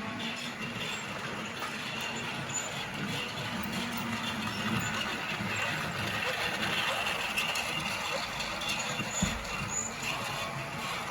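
Battery-powered Lego Duplo toy train running along its plastic track with a steady noisy whir.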